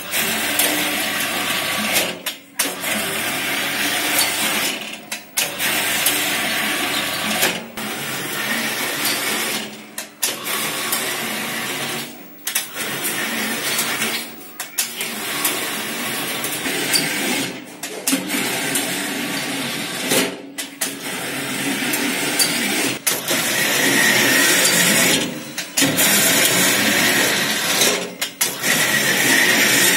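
Stainless-steel dough sheeter running empty, its electric motor turning the rollers through a V-belt drive: a steady mechanical whir that briefly dips about every two and a half seconds.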